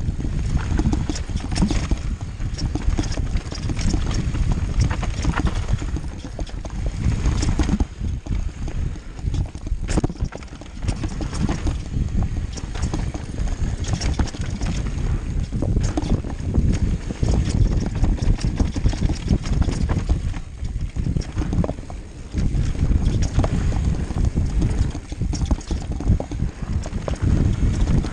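Mountain bike ridden fast down a bumpy dirt singletrack, its frame, chain and components clattering and knocking irregularly over the bumps under a heavy, steady low rumble of wind on the microphone.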